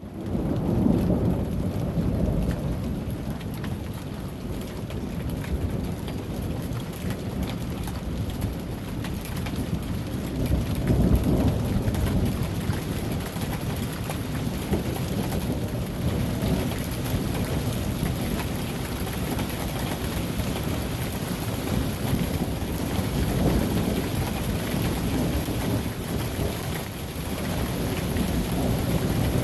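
Thunderstorm: steady rain falling with low rolls of thunder rumbling under it, the strongest about a second in and about eleven seconds in.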